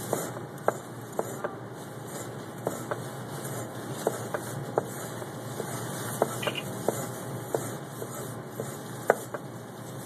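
Chef's knife cutting through an ingredient on a cutting board for a brunoise dice, with irregular sharp knife-on-board taps, about one or two a second, over a steady room hum.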